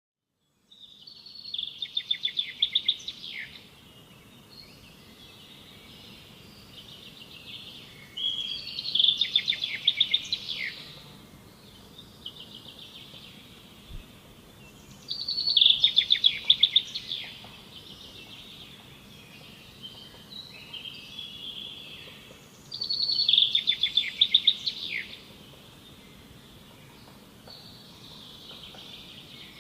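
A songbird singing, repeating a loud rapid trilled phrase about every seven seconds, with quieter twittering between phrases.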